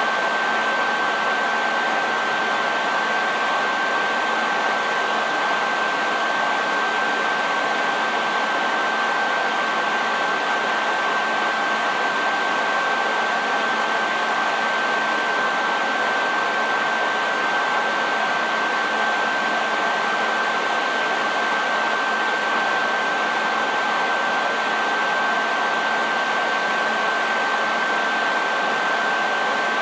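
Hair dryer running steadily: an even rush of air with a constant high motor whine and a faint low hum, unchanging throughout.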